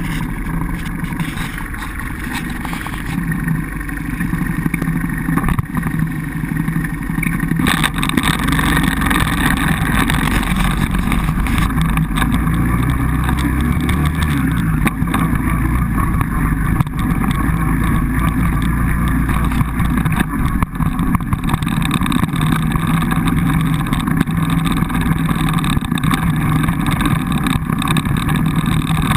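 Quad bike (ATV) engine running close up while the bike is ridden over rough grass, the rumble growing louder about eight seconds in as the ride gets under way.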